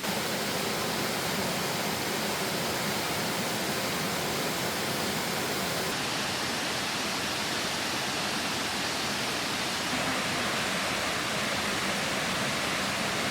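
Mountain valley stream rushing steadily, a constant hiss of flowing water.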